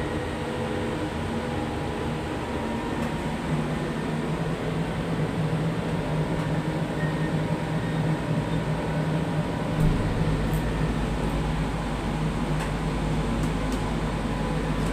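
Steady mechanical hum and whir inside an enclosed observation-wheel gondola as it moves, with a deeper rumble setting in about ten seconds in.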